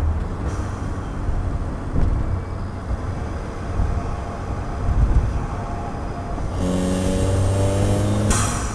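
2015 Ford Fiesta ST's turbocharged 1.6-litre four-cylinder engine and exhaust under way, a low rumble with road noise, then the engine pulling with a rising pitch for about two seconds near the end, cut off by a brief sharp burst of noise.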